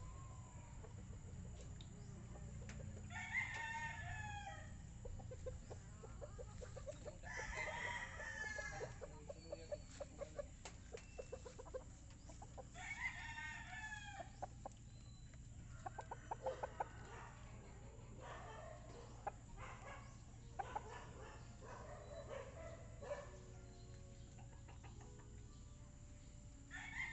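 Roosters crowing three times, each crow lasting about a second and a half to two seconds, with chickens clucking and some clicking sounds between the crows.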